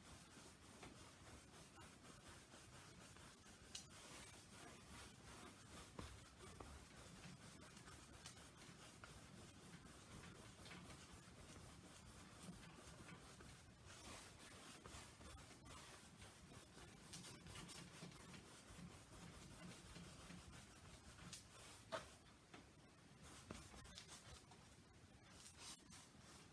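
Faint rubbing of a wet paintbrush worked back and forth across acrylic paint on a canvas, with a few light ticks.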